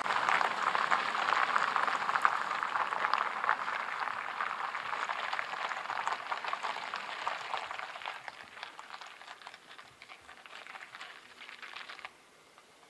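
Tyres of a 2019 Kia K900 hissing and crackling on wet asphalt as the car drives away, fading steadily, then cutting off abruptly near the end.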